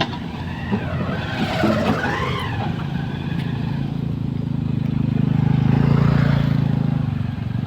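A vehicle engine running steadily, rising in load or revs about five seconds in and easing off near the end.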